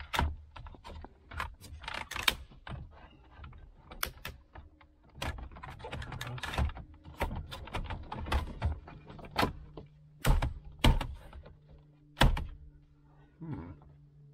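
Plastic dashboard trim panels of a Ford F-150 being handled and pressed back into place: an irregular string of clicks, taps and knocks, with a few sharper snaps about two seconds in and between ten and twelve seconds in.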